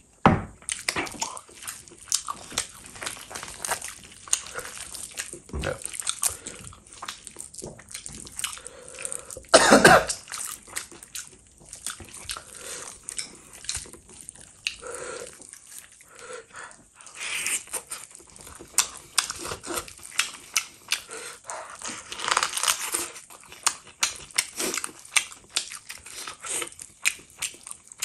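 Eating sounds from mutton leg meat torn off the bone by hand and chewed: many short clicks of chewing and smacking, with one louder mouth sound about ten seconds in.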